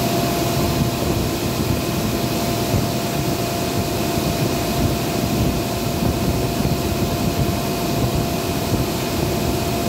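Steady industrial machinery noise: a loud, even rush with a constant hum underneath.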